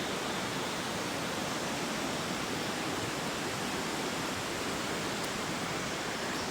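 Mountain stream's water rushing, a steady, even noise.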